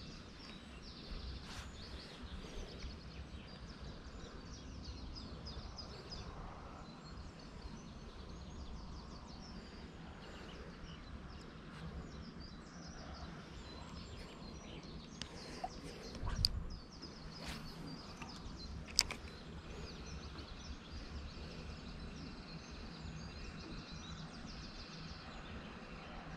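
Small birds chirping and twittering over a steady low rumble, with a thump and a couple of sharp clicks a little over halfway through.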